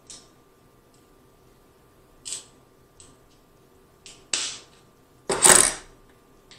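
King crab leg shell cracking and crunching as it is broken apart by hand, in a few separate sharp cracks that get louder, the loudest and longest near the end.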